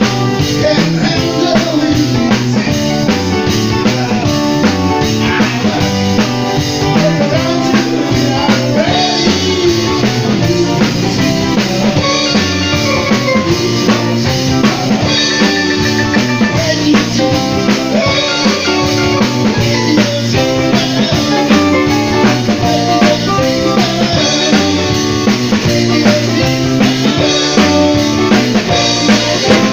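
Live band music: electric guitar and drum kit playing a steady rock beat, with a man singing into a microphone over it.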